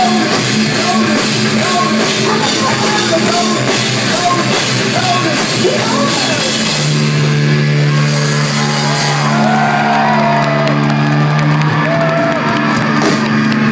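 Electronic rock band playing live and loud, with drums, bass and synth under a singing voice. About halfway through, the drum hits thin out and long held low notes carry the music.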